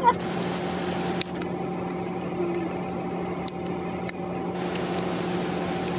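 A steady low machine hum with a few short, faint clicks over it.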